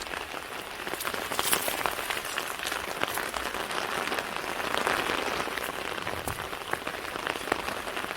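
Steady patter of rain with many scattered single drop ticks.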